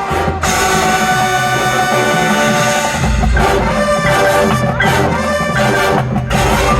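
High school marching band playing: the brass section holds sustained chords over percussion hits. A heavier low part comes in about three seconds in.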